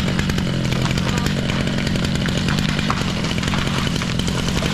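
Chainsaw running steadily as a large redwood tree is being felled.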